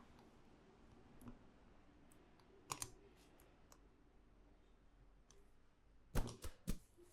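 Sharp clicks from hands working a head and neck massage: a quick pair, then three more about a quarter second apart near the end, the loudest of them.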